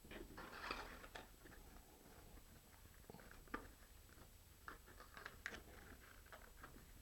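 Near silence with faint, scattered clicks and taps: laser-cut jig parts being pushed together by hand, their tabs seating in the slots.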